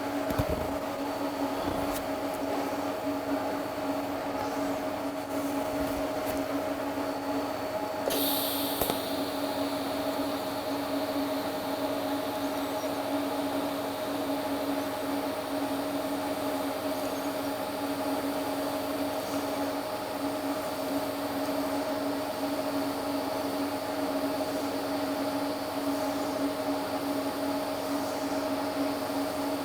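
Electric welding arc fusing a bead around a steel bushing in a pipe leg: a steady hum, with a high hiss that starts sharply about eight seconds in and then holds.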